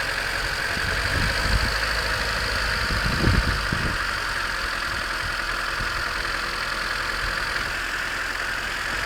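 1991 Honda CRX DX's D15B2 1.5-litre four-cylinder idling on a cold start, making a steady racket that the owner can't place among rod knock, piston slap and valve clatter. Two brief low rumbles come through about a second in and again around three seconds in.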